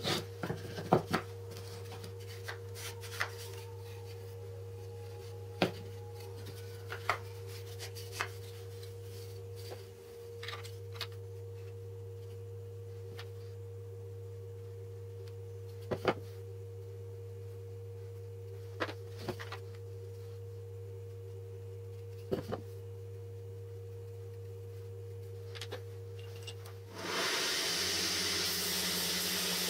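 Scattered light clicks and knocks as wooden jig parts with plastic roller wheels and bolts are handled and set down on a wooden tabletop, over a steady low hum. About 27 seconds in, a louder, steady hiss of a running belt sander takes over.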